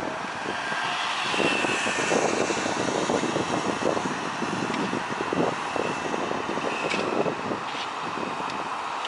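Road traffic: cars driving past on the street below, a steady hiss of tyres and engines. It grows louder for a few seconds near the start as vehicles pass close by.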